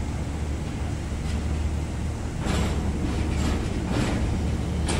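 Steady low rumble of ship engines running, with several short hissing bursts about halfway through and near the end.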